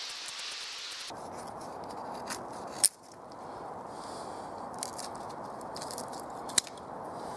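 Knife blade shaving thin curls down a split wooden stick to make a feather stick: scraping strokes against the wood, with a few sharp cracks, the loudest about three seconds in and again about six and a half seconds in.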